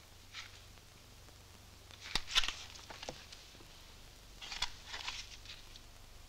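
Papers and small objects being handled in a drawer: rustling as a passport and photographs are picked through, with a sharp click about two seconds in and more rustling around four and a half seconds in, over a faint low hum.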